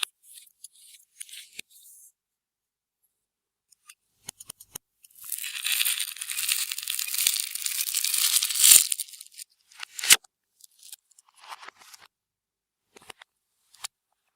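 Clear slime being worked by hand: scattered sticky clicks and pops, then about four seconds of dense crackling, followed by a few sharp pops.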